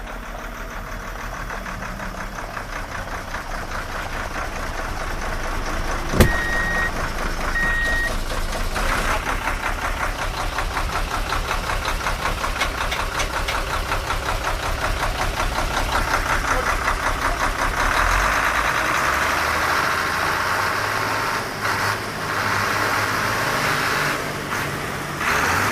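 Toy truck running: a steady, rapidly pulsing engine-like sound that slowly grows louder. About six seconds in comes a sharp click, then two short high beeps.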